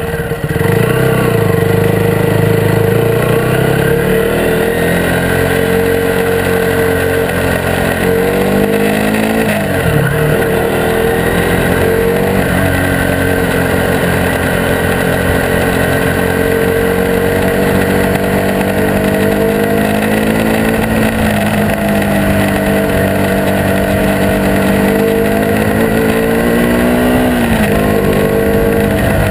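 Motorbike engine running while riding, its pitch rising and falling with the throttle: it climbs in the first few seconds, dips and picks up again about ten seconds in, and rises then drops once more near the end.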